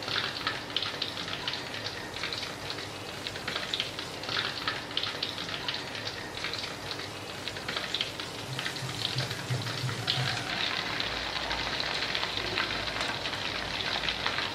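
Crumb-coated chicken legs deep-frying in hot oil: a steady sizzle full of fine crackling.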